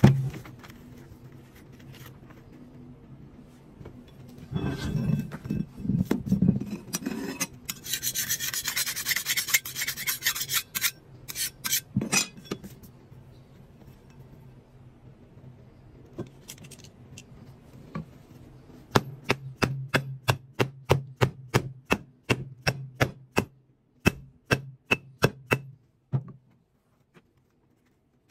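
Scraping and rubbing on a round mold disc: a rough rubbing, then a harsher rasping about a third of the way in, and later a run of short sharp strokes, about three a second, that stops a couple of seconds before the end.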